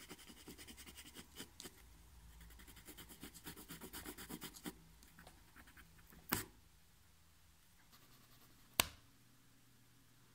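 Soft Faber-Castell graphite pencil scratching over cotton watercolour paper in quick, heavy hatching strokes. About six seconds in, and again near nine seconds, a sharp snap: the pencil lead breaking under heavy pressure.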